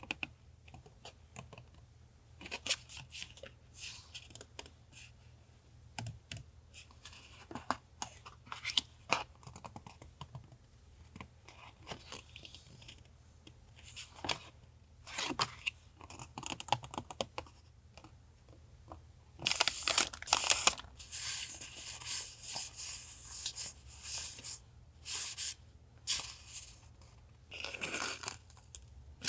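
Paper being handled for a journal collage: scattered light taps and rustles, then about two-thirds in a louder, denser stretch of paper tearing and crinkling. A low steady hum runs underneath.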